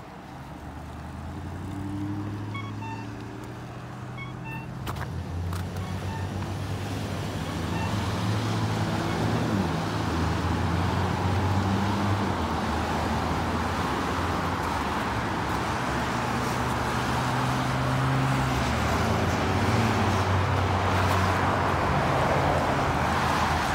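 Road traffic at a signalled intersection: car engines running and vehicles moving off and passing, the noise building after several seconds. A few short, faint chirps from the accessible pedestrian crossing signal come a few seconds in.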